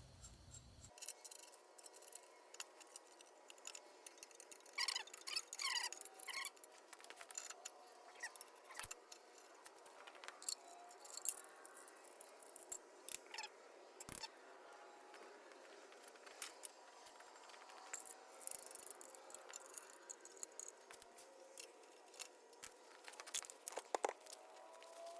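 Faint, scattered metal clinks, clicks and short scrapes of hand tools on nuts and studs as a transmission bell housing is drawn up onto an engine adapter plate.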